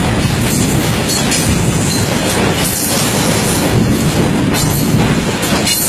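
Freight train wagons rolling past close by: a loud, steady rumble of steel wheels on the rails, with scattered clacks over the rail joints.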